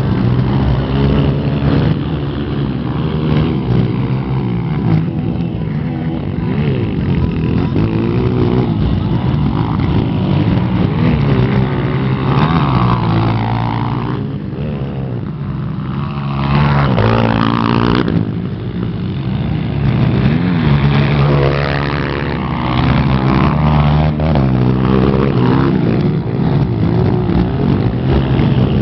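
Several motocross motorcycle engines running and revving, their pitch rising and falling as the bikes accelerate and shift around the track. The loudest moment comes about two-thirds of the way in, when a bike passes close.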